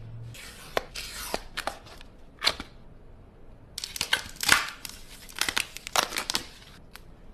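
Packaging of the phone's retail box being torn open and handled: short tearing rasps and clicks in two bursts, the second running from about four seconds in to about seven.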